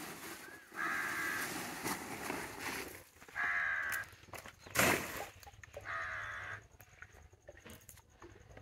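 A crow cawing: three harsh calls a couple of seconds apart, with a single sharp knock between the second and third.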